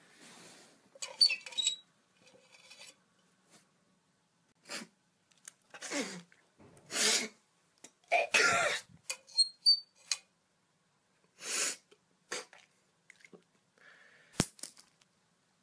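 A person sneezing, coughing and breathing hard in a string of short, noisy bursts, loudest about seven to nine seconds in, with a sharp click near the end.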